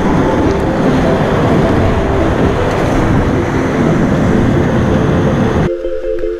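Loud rushing roar of whitewater rapids heard from a kayak in the rapid, with soft background music underneath. Near the end the river sound cuts off abruptly and only the music remains.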